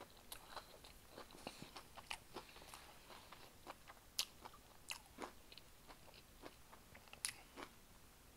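Quiet, close-up chewing and biting of battered fried chicken: scattered sharp little clicks and crunches from the mouth, with no steady sound between them.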